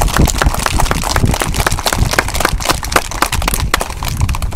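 A crowd of schoolchildren and adults applauding: a dense patter of many hand claps that thins out near the end.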